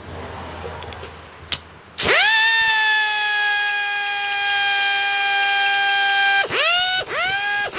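A sharp click, then a Chicago Pneumatic air tool's motor spins up to a loud, steady high-pitched whine. Near the end it stops and restarts in three short bursts, each rising quickly back to full pitch. The tool runs flat out because its trigger switch is stuck on full.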